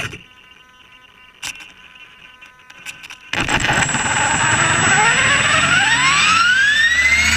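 Blade 400 electric RC helicopter's motor and rotor spooling up: a sudden start about three seconds in, then a whine that rises steadily in pitch as the rotor gathers speed, with a steady high tone alongside.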